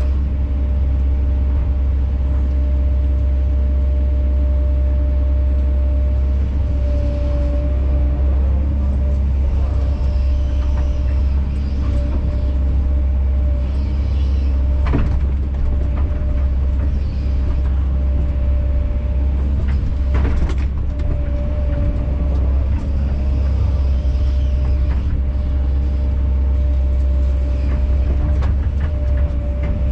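Kobelco SK210 excavator's diesel engine running steadily under load with its hydraulics working, with a couple of sharp clanks about halfway through.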